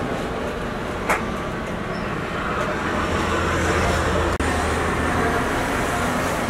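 Steady background noise of a street food stall, a low hum under an even traffic-like rumble, with a single sharp click about a second in.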